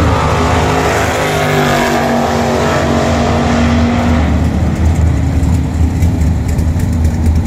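Drag race cars running at full throttle down the strip. The engine note thins out and fades over the first four seconds or so, and a steady low rumble runs underneath.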